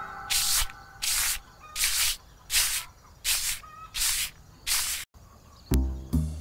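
Short straw hand broom sweeping a dirt yard: seven brisk swishing strokes, about one every 0.7 seconds. Music starts near the end.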